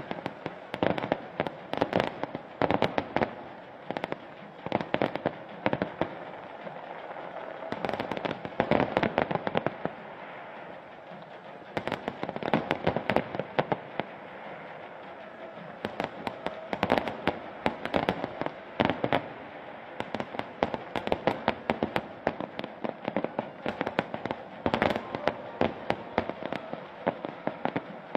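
A fireworks display: many aerial shells bursting in rapid clusters of bangs, volley after volley, with short lulls of a second or two between volleys.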